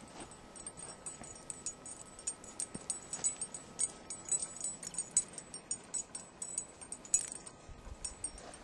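Light metallic jingling: many quick, irregular clinks of small metal pieces.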